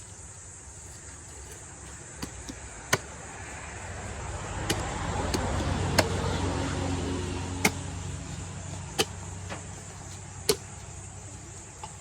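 A motor vehicle passes, its engine sound swelling over a couple of seconds and fading away. Sharp knocks come every second or two over a steady high insect drone.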